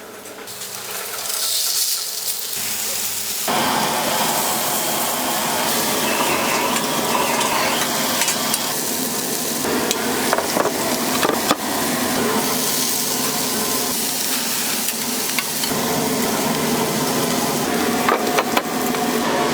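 Food sizzling in a hot pan or on a griddle, with utensils stirring and scraping and small metal clicks. The sizzle starts about a second in and grows much louder about three and a half seconds in.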